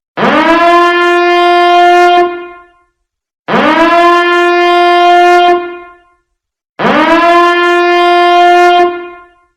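Nuclear-attack warning alarm: a harsh, buzzing horn tone that swoops up in pitch as it starts, holds for about two seconds, then fades away. It repeats three times, with a short silence between blasts.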